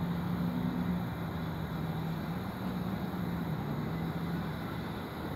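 Steady low hum of a distant engine over outdoor background noise, fading out near the end.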